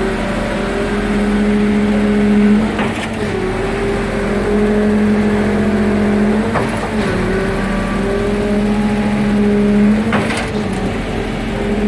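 Truck-mounted 39 m concrete boom pump running at steady high engine speed while pumping concrete. About every three and a half seconds a knock sounds and the engine note briefly dips as the pumping cylinders change stroke.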